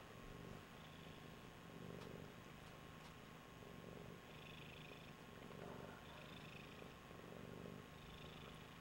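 A tabby cat purring faintly and steadily, the low purr rising and falling in cycles of about a second with each breath.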